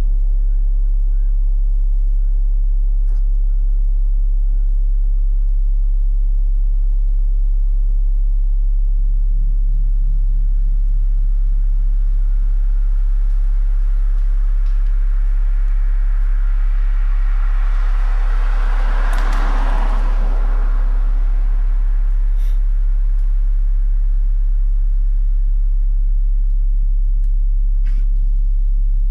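A steady, very low hum. About two-thirds of the way in, a rushing noise swells up and fades away, and a few faint clicks are heard.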